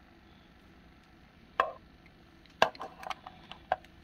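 Small hard objects being handled and set down, as diecast model cars are moved around: one sharp knock, then about a second later a quick run of clicks and knocks.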